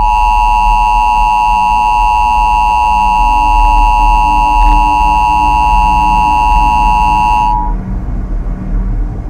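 Emergency Alert System–style attention tone: a loud, steady, harsh two-tone beep held for about seven and a half seconds, then cut off suddenly. A low steady drone runs underneath and carries on after it.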